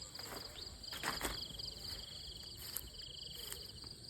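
Insects trilling in rapid pulsed chirps at two pitches, with a short rustle about a second in.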